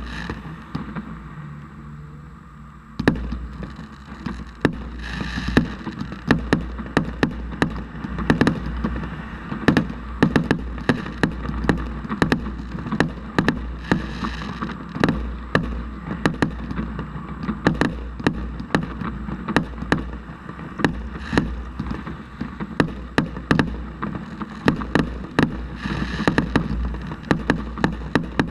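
Fireworks display: from about three seconds in, a dense barrage of sharp bangs follows one after another over a steady low rumble, with short hissing stretches between the bursts.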